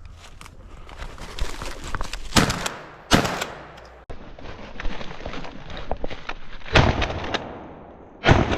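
A 20-gauge pump-action shotgun firing at a flushed pheasant: several loud, sudden reports, the loudest about three seconds in, each dying away, with brush rustling between them.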